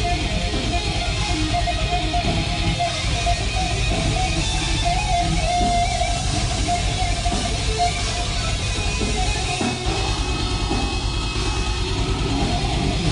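Death metal band playing live: loud, dense electric guitar and full-band sound with no letup.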